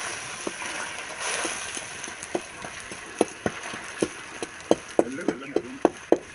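Metal ladle stirring in a metal pan over a wood fire, knocking against the pan: a few scattered knocks at first, then about three a second from the middle on, over a steady hiss.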